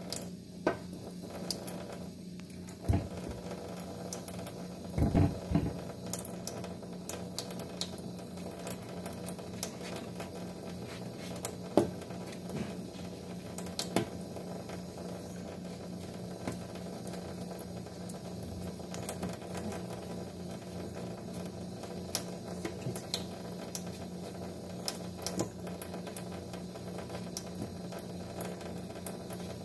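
A thin stream of tap water running into a stainless-steel sink, with scattered clicks and scrapes as a knife peels a mango, over a steady low hum. A few louder knocks come in the first few seconds.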